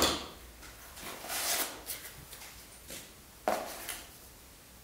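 Handling sounds from unboxing a small cardboard box at a wooden workbench. A sharp knock as a part is set down on the bench, then a rustle of cardboard and packaging, and another short click about three and a half seconds in.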